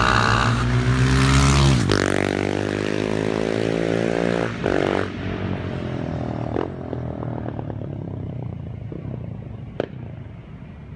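2016 Husqvarna 701 Supermoto's single-cylinder engine through an Akrapovic slip-on exhaust, accelerating hard with rising pitch, then fading away as the bike moves off into the distance. A single sharp click near the end.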